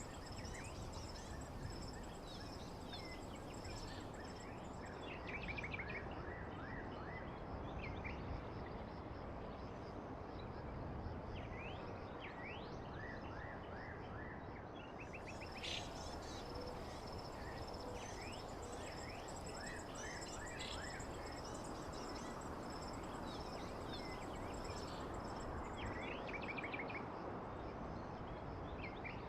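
Nature ambience: several birds chirping and calling in short rising and falling notes, scattered throughout, over a steady high-pitched insect drone and a constant background hiss.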